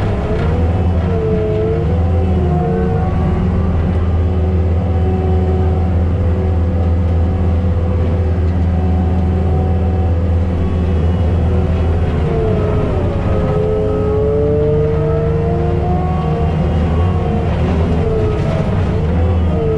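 Tracked skid steer's diesel engine running at high revs, driving a forestry mulcher head. A whine over the engine sags in pitch and recovers several times, most deeply about 12 to 16 seconds in.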